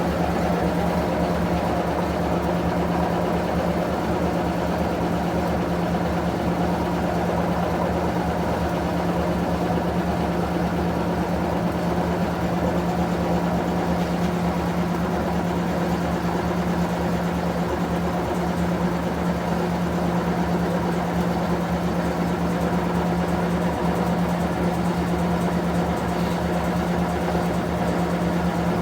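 Electrolux Prosdócimo washing machine running, its motor giving a steady, even hum that neither rises nor falls.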